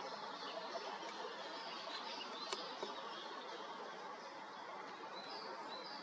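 Short, high bird chirps repeated over a steady background hiss, with a single sharp click about two and a half seconds in.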